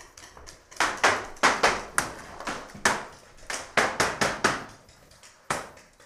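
Paintball fire: a rapid, irregular string of sharp pops, with a last single pop near the end, echoing inside a small wooden building.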